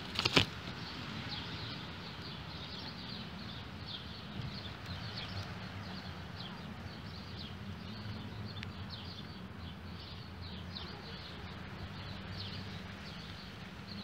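Short, high, downward-sweeping chirps repeating irregularly, several a second, from small animals in the surrounding vegetation, over a steady low background. Two brief knocks sound right at the start.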